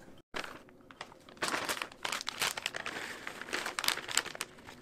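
Plastic bag of shredded cheese crinkling as it is handled and shaken out into a bowl, a run of crackly rustles starting about a second and a half in.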